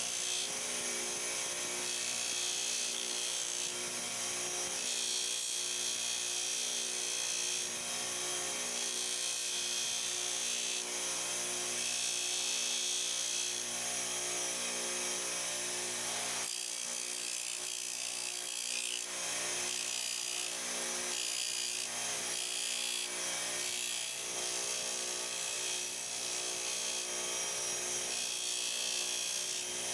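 Power tool running steadily with a spinning wheel scrubbing against metal; the motor hum pulses in an even rhythm under a hissing rasp.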